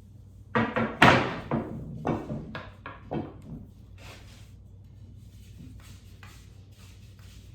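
A run of sharp knocks and clatters, the loudest about a second in, then softer scraping and rubbing: an extension pole being handled and worked against the threaded socket of a stain pad that it won't screw into.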